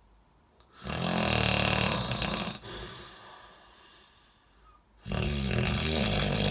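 Loud, rattling snoring: a long snore about a second in that trails off into a quieter breath, then a second loud snore starting about five seconds in.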